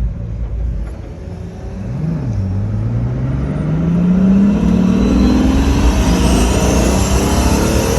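Pagani Huayra Roadster's twin-turbo V12 accelerating: a short blip about two seconds in, then the engine note climbs steadily in pitch and grows louder, with a faint high whistle rising alongside it in the second half.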